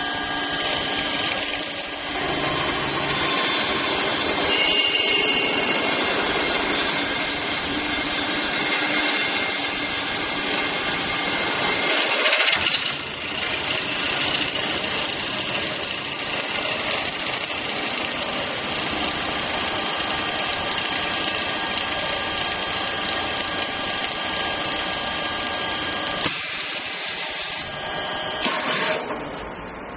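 A CNC drilling and cutting machine running: steady mechanical noise with several steady tones, a brief louder burst about twelve seconds in and a change in the sound near the end.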